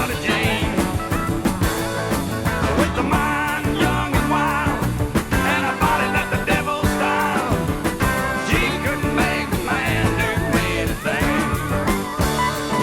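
Country music recording: a full band playing with a steady beat.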